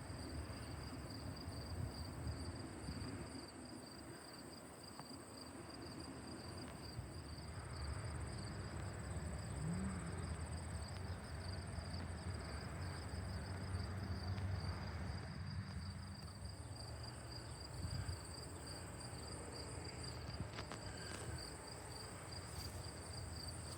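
Insects trilling steadily in two high pitches throughout, over a low, steady rumble of outdoor background noise.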